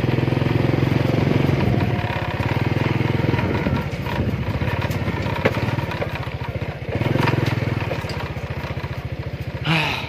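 Small motorcycle engine running while riding along a dirt track, its note swelling with the throttle in the first couple of seconds and again about seven seconds in, easing in between.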